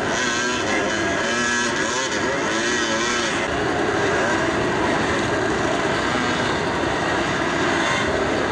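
Dirt bike engines revving on a rocky climb, the pitch wavering up and down through the first few seconds, then a steadier mix of engine noise.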